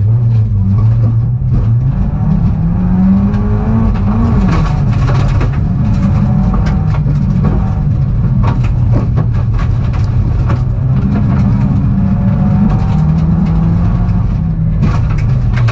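Peugeot rally car engine heard from inside the cabin, its pitch climbing under acceleration and dropping at each gear change or lift, with scattered knocks and rattles throughout.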